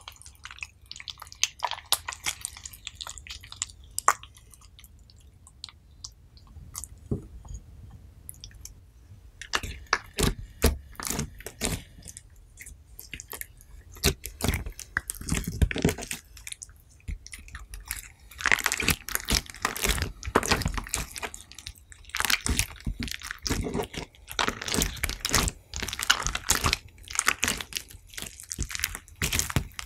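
Hands squeezing, pressing and stretching sticky slime mixed with crushed sea-buckthorn berries: dense runs of wet, crackling clicks. They thin out for a few seconds in the first third and are busiest in the second half.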